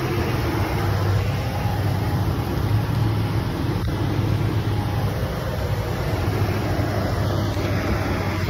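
Vehicle engine idling steadily with a constant low hum.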